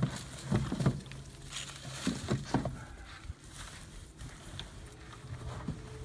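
Wooden rabbit nest box being pushed into a wooden hutch: several knocks and scrapes of wood on wood in the first three seconds, then quieter handling.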